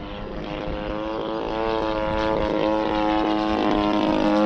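The DLE 85 twin-cylinder two-stroke gas engine of a large radio-controlled FW-190 model airplane, flying at about half throttle. Its steady propeller drone grows louder as the plane approaches, with slight rises and falls in pitch as it passes.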